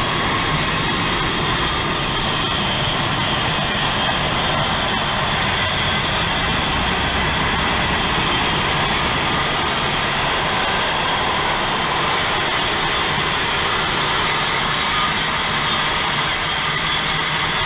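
Union Pacific freight train's hopper cars rolling past: a loud, steady noise of steel wheels running on the rails.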